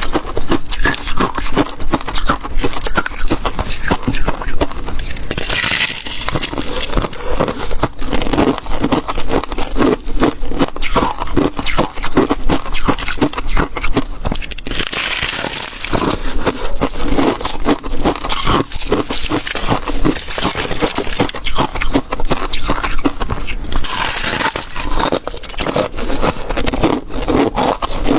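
Close-miked crunching and chewing of flaky frozen ice: a dense, continuous run of crisp crackles and scrapes, with a few brighter, hissier stretches.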